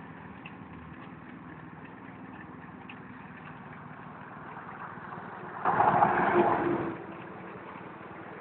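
Small petrol engine of an airless road-line striping machine idling steadily. About two-thirds of the way through, a louder burst of noise lasts about a second.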